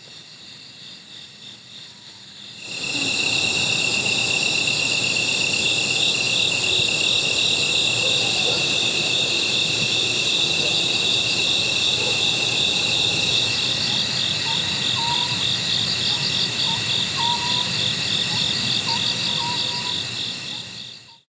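Night chorus of crickets and other singing insects: several steady high trills, one of them pulsing rapidly, starting about three seconds in and stopping abruptly just before the end. A few faint, short, lower chirps join near the end.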